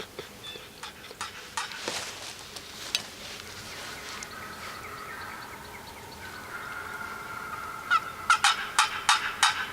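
Wild turkey yelps: a run of sharp, raspy yelps, about four a second, starts about eight seconds in. Before it there is a softer, wavering call.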